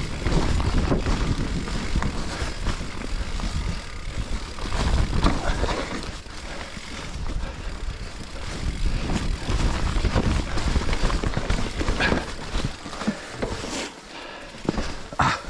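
Specialized Levo e-mountain bike ridden over a rough forest trail: tyre rumble and wind on the microphone, with the frame and parts clattering as the bike hits bumps.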